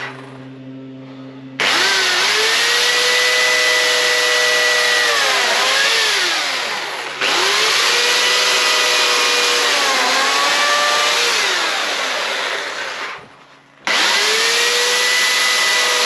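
Corded electric chainsaw cutting into a wooden log. Its motor whine drops in pitch whenever the chain bites into the wood and rises again as it frees. The saw runs in three stretches, each starting abruptly, the first about a second and a half in.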